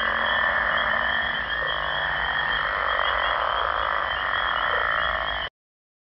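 Dense chorus of many frogs calling together, steady throughout, with a wavering high trill above it. It cuts off suddenly about five and a half seconds in.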